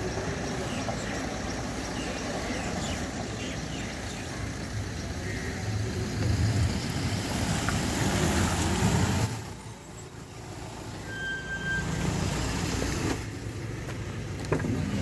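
Road traffic: a steady rumble of passing cars and trucks, with a short high beep about eleven seconds in.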